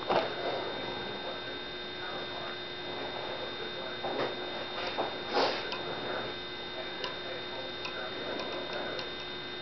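Steady hum with a thin high whine, and a few scattered faint taps and clicks from the hydrometer and its steel test cup being handled.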